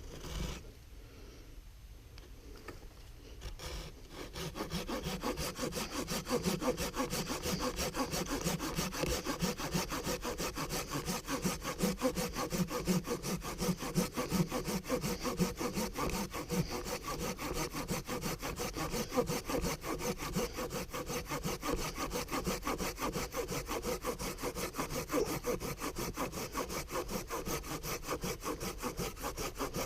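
Wicked Tree Gear folding hand saw cutting through wood in steady, repeated back-and-forth strokes that start about four seconds in.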